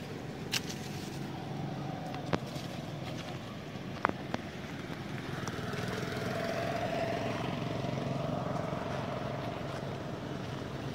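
A motor vehicle's engine running steadily in the background, growing a little louder past the middle. A few sharp clicks sound in the first half.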